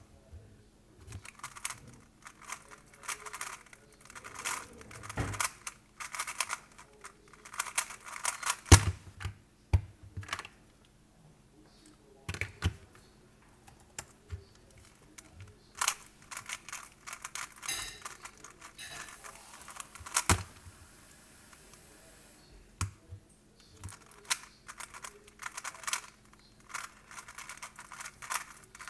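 3x3 speed cube being turned very fast: dense clicking and clacking of the layers in runs of several seconds, broken by short pauses, with a few sharper single knocks. A faint steady hum lies underneath.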